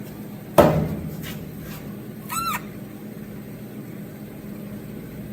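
A single sharp knock with a short ring-out about half a second in, then a brief rising squeak, over a steady low hum.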